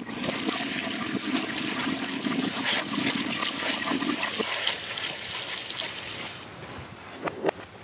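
Kitchen tap water running onto green sansho berries in a stainless mesh strainer as they are rubbed and rinsed by hand, heard played in reverse. The water cuts off suddenly about six and a half seconds in.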